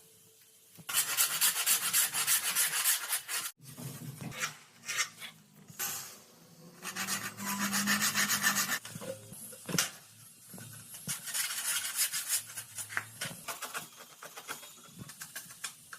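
A hand tool is rasped rapidly back and forth across wood in three bursts of quick strokes, with quieter scraping between them: veneer edges being filed or sanded to fit.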